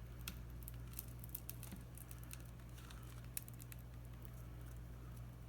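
Small, irregular clicks and scrapes of a pry tool working under a tablet's glued touchscreen glass, the sharpest click about three and a half seconds in, over a steady low hum.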